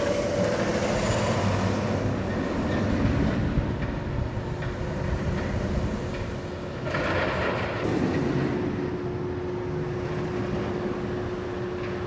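Empty B&M hyper coaster train running over its steel track during testing: a continuous rumble of wheel noise that swells again about seven seconds in. A steady hum of one pitch joins it about eight seconds in.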